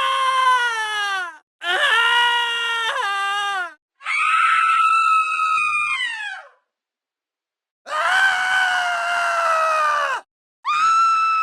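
A high-pitched voice screaming: five separate screams, each a second or two long, several sliding down in pitch as they end. They are cut apart by stretches of dead silence, the last one starting just before the end.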